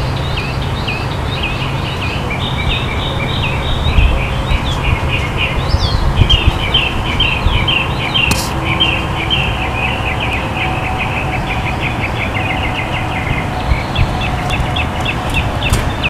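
Many small birds chirping in quick, continuous bursts over a steady low rumble of outdoor background noise, which swells for a few seconds near the middle.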